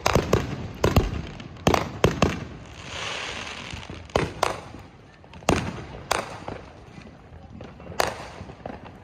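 Neighbourhood consumer fireworks: about a dozen bangs and pops from aerial shells bursting at varying distances, several in quick succession in the first couple of seconds. There is a short hissing stretch about three seconds in.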